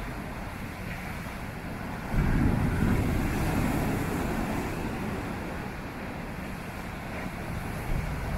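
Storm surf crashing and washing up the beach, mixed with a heavy low rumble of strong wind buffeting the microphone. The surf suddenly swells louder about two seconds in, fades, then builds again near the end.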